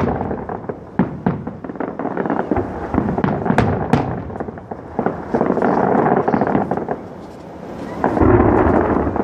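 Aerial firework shells bursting one after another, sharp bangs and crackle over a continuous rumble, with a louder, denser run of bursts near the end.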